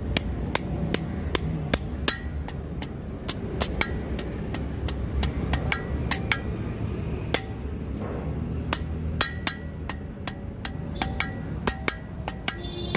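Hand hammer striking red-hot leaf-spring steel on an anvil while the hooked tip of a billhook blade is shaped. The ringing blows come irregularly, about two a second, with a pause of about a second just past the middle, over a steady low rumble.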